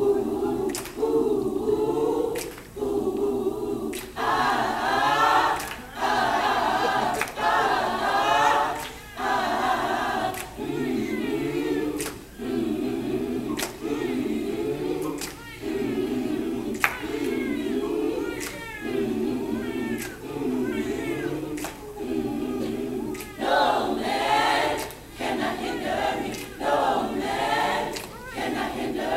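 Choir singing in short repeated phrases about once a second, with higher voices coming in over the lower ones a few seconds in and again near the end.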